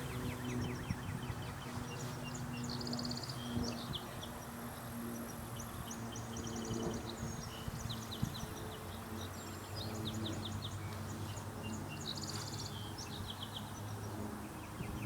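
Wild birds singing: short, rapid, high-pitched trills and chirps, repeated again and again, over a steady low hum.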